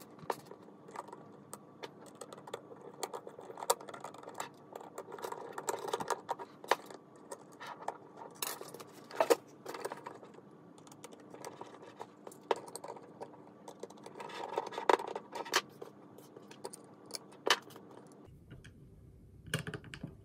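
Irregular clicks, rattles and scrapes of small hard plastic parts being handled, over a faint steady hum that stops about 18 seconds in.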